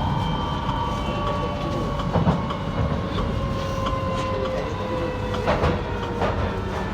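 London Underground 2009 Stock train running, its motor whine gliding slowly down in pitch over a steady rumble, with scattered clicks of the wheels over the rails.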